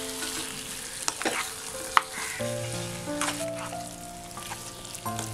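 Fried mutton pieces being stirred into sizzling onion-tomato masala in a non-stick pan: a steady sizzle with the spatula scraping through the meat and a few sharp taps against the pan.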